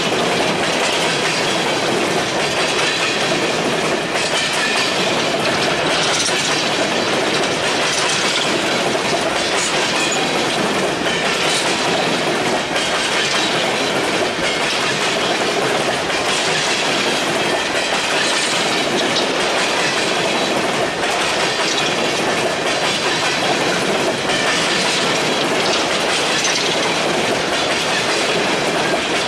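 Freight train of coal gondolas rolling past close by: a steady rumble of steel wheels on rail, with a clack recurring every couple of seconds as the cars' wheels go by.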